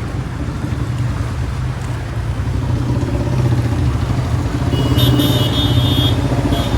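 Royal Enfield Bullet's single-cylinder engine running with a steady, fast low thump. A short high-pitched tone cuts in about five seconds in and again near the end.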